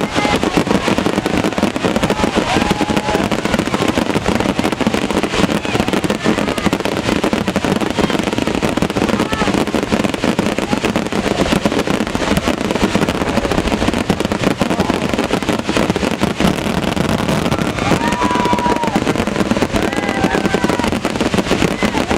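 Fireworks grand finale: a dense, unbroken barrage of bangs and crackling, with crowd voices rising above it now and then.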